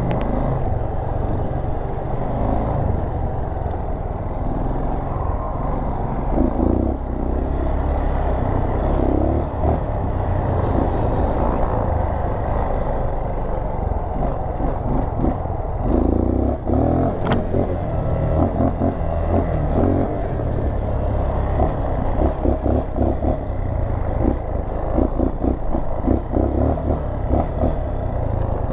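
Dual-sport motorcycle engine running as the bike is ridden along a sandy dirt trail, with steady low wind rumble on the helmet microphone and uneven jostling from the rough ground. One sharp click about two-thirds of the way through.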